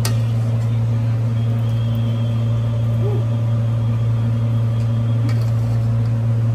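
A steady low hum, loud and unchanging throughout, with a few faint clicks on top.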